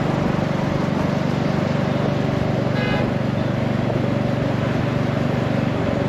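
Royal Enfield Meteor 350's single-cylinder engine running steadily under way, with a steady rush of wind and road noise. A brief vehicle horn sounds about three seconds in.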